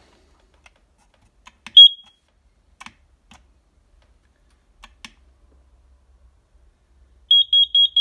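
Kidde carbon monoxide alarm sounding during a test-button self-test: one sharp high beep about two seconds in, then a quick run of four beeps near the end, with a few faint clicks between.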